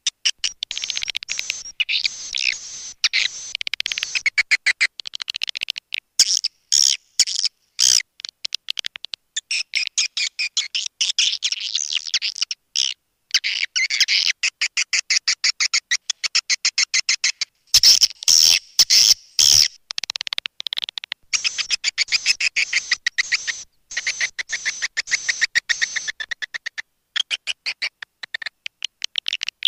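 Swiftlet calling sound, the recorded lure call played to attract swiftlets to a nesting house: dense, rapid, high-pitched twittering chirps and trills in bursts with short gaps. A few sharp clicks stand out, one about eight seconds in and a cluster a little past the middle.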